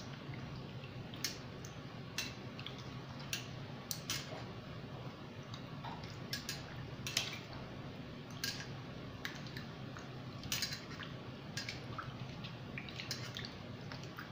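Peeled potatoes being washed by hand in a steel bowl of water: irregular small splashes and drips as the hand swirls and rubs them.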